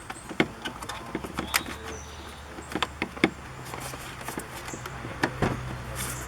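Irregular clicks and knocks of car door panel and window switch parts being handled and fitted, over a low steady hum.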